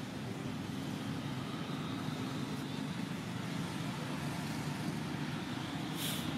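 Steady low background rumble, with a short burst of hiss near the end.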